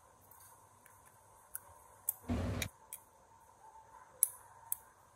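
Light, sharp metal clicks as a Zippo lighter case and small tools are handled during hinge soldering, with one short rushing burst a little over two seconds in.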